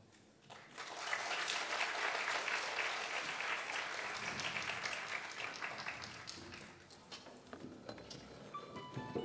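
Theatre audience applauding. The applause starts about half a second in, holds steady, and dies away over the last few seconds. Just before the end a plucked guzheng note begins to ring.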